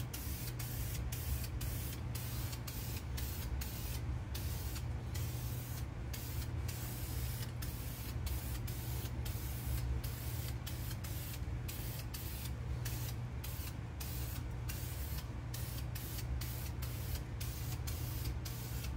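Aerosol spray can of enamel primer hissing in many short bursts with brief breaks between them. A steady low hum runs underneath.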